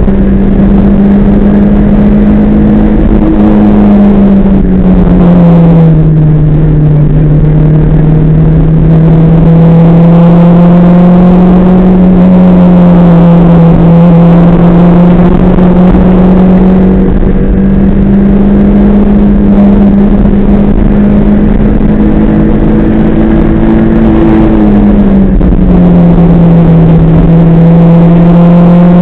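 Rally car engine heard from inside the cockpit, running hard at high, fairly steady revs. Its note slides lower about five seconds in, climbs back up a little after halfway, and drops again near the end.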